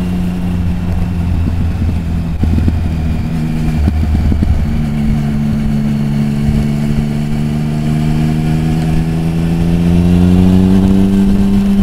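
Triumph Speed Triple's three-cylinder engine running on the move. The engine note drops about four seconds in, then rises slowly and steadily as the bike accelerates, over a constant low rumble.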